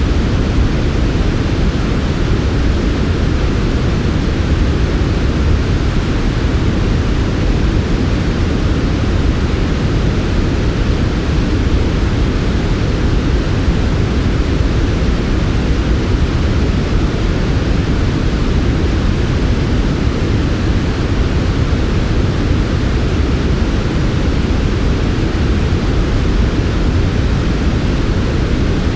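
Steady, unchanging synthetic white noise for sleep, heavy in the low end with a softer hiss above.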